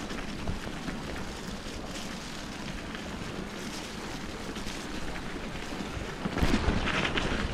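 Bicycle riding a forest trail: wind buffeting the action camera's microphone over a steady rumble from the tyres. About six seconds in it gets louder, with a stretch of crackling clicks.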